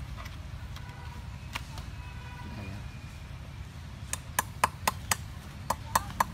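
Knife chopping small fish on a hard surface: a quick run of sharp chops about four a second beginning past the halfway point, then three more near the end.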